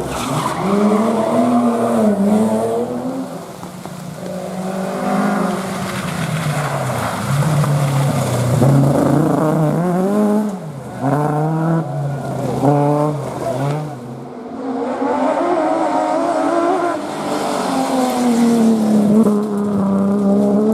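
Historic rally car engine revving hard, its pitch climbing and dropping repeatedly through gear changes and lifts, with a run of short quick rises around the middle and a longer pull near the end.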